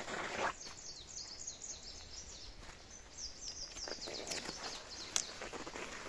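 A songbird singing a run of quick, high, down-slurred notes for about four seconds, over footsteps rustling through twigs and leaf litter on the forest floor, loudest at the very start.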